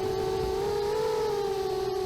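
A small engine running at high, fairly steady revs, its pitch wandering slowly up and down.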